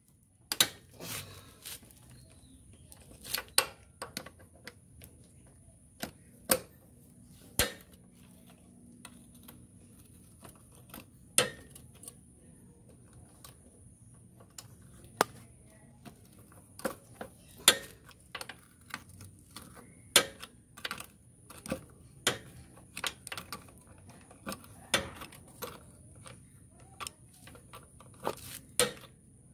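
Ratchet wrench working a socket on a motorcycle's rear chain adjuster bolt, giving short sharp metallic clicks at irregular intervals, often a second or more apart and sometimes in pairs.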